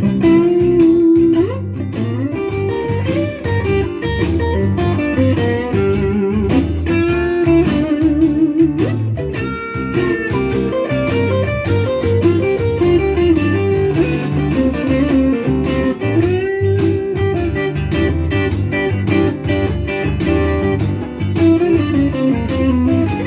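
Blues shuffle played on electric guitar: lead lines with sustained, bent notes over a steady rhythmic backing with low notes.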